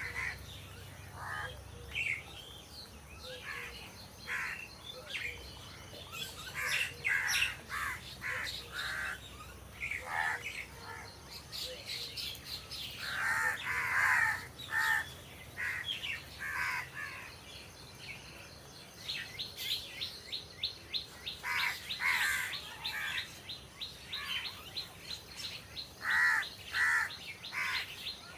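Crows cawing, with many short, harsh calls coming irregularly. About two-thirds of the way through, a fast, even run of high chirps joins them.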